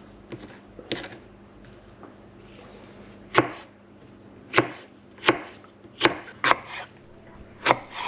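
Kitchen knife chopping onion and jalapeño on a cutting board: a few soft cuts, then from about three seconds in, about six sharp knocks of the blade on the board, unevenly spaced.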